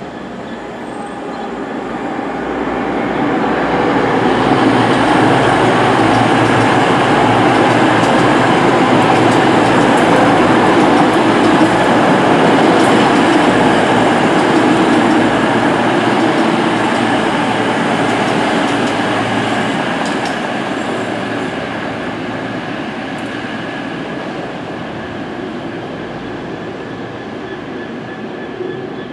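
East Midlands Trains Class 222 Meridian diesel multiple unit passing along the line: the rumble of its underfloor diesel engines and wheels builds over the first few seconds, stays loud for about twelve seconds, then fades to a lower, steady level as it moves away.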